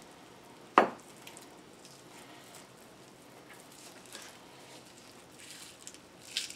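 Soft handling noises from gloved hands and a butter knife working a raw rack of pork ribs on a plastic cutting board while loosening the membrane, with one sharp knock about a second in and a brief scrape near the end.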